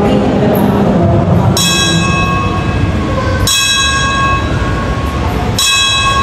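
Altar bells (sanctus bells) rung three times, about two seconds apart, each ring sharp and shimmering before it fades, over a steady low rumble of the church. Rung at the consecration of the Mass.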